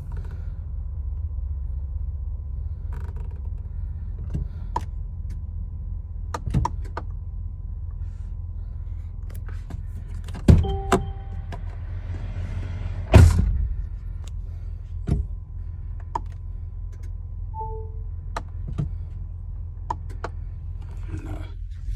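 Clicks, two heavy thumps and short electronic chime beeps in the cabin of a 2022 Mercedes-Benz Sprinter van during a failed start attempt: the engine does not crank or start. A low steady rumble runs underneath.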